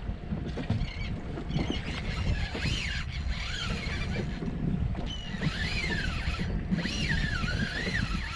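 Low rumble of wind and water around a small boat, with birds giving rising-and-falling cries about two seconds in and again through the second half.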